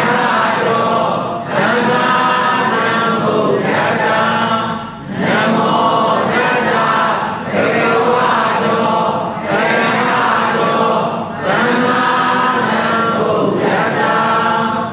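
A group of voices chanting Pali in unison, in short phrases with brief breaks between them.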